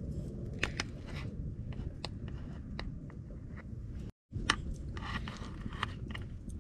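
Wood fire crackling in a camp grill over a steady low rumble, with metal chopsticks scraping and clicking against an aluminium mess tin as cooked rice is loosened: scattered sharp ticks throughout, briefly cutting out about four seconds in.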